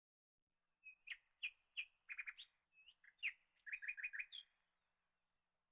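A small bird chirping: a run of short, high notes with a few quick rattled trills, starting about a second in and stopping after about three and a half seconds.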